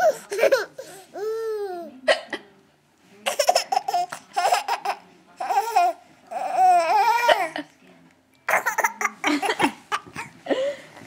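A baby laughing in several separate bursts, with hiccups among the laughs.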